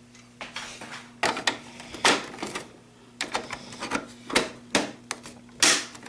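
Small hard plastic toy pieces being handled and set in place: about a dozen irregular clicks and clacks, over a faint steady low hum.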